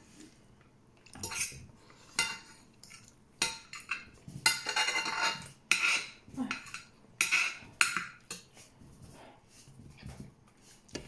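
Irregular clinks and scrapes on a ceramic dinner plate as a meal is eaten, about a dozen sharp clatters bunched in the middle, some ringing briefly.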